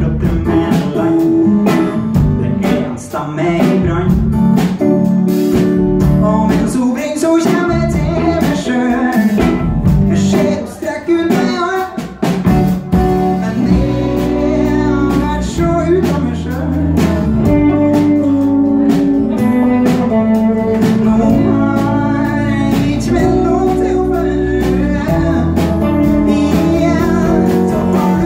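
Live rock band playing: a man singing over strummed acoustic guitar, electric guitar, electric bass and drum kit. The band thins out briefly around the middle, then comes back in fuller.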